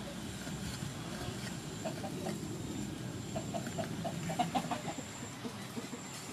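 Chickens clucking in short runs of quick notes, about two seconds in and again from about three to five seconds. Under them are faint taps of a cleaver slicing raw beef on a wooden chopping board.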